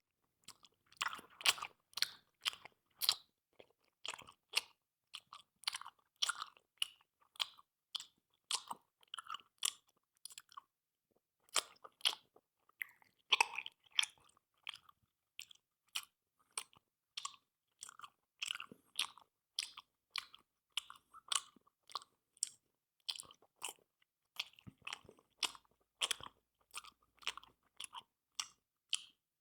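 Loud open-mouthed smacking while chewing: a steady run of short, wet lip-and-tongue smacks, about two or three a second, with a brief pause partway through.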